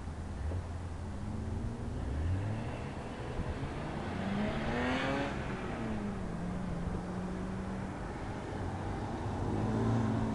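Nissan 240SX (S13) with a turbocharged SR20DET inline-four, revving and accelerating around an autocross course. Engine pitch climbs to a peak about five seconds in, drops and holds steadier, then climbs again near the end.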